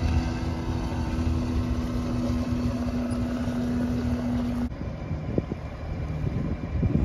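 Boat engine running at a steady hum, with wind buffeting the microphone; the engine sound stops abruptly about two-thirds of the way through, leaving wind and water noise.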